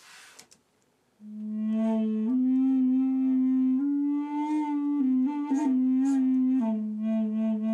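Wooden flute in A playing a slow phrase of held notes. It starts about a second in on its low note, steps up and moves among a few higher notes, then settles back on the low note. It is heard as studio playback of the take just recorded.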